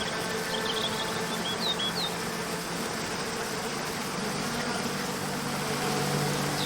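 Waterfall rushing steadily, with birds chirping in the first couple of seconds and again at the very end. A soft, sustained low drone of background music swells from about halfway through.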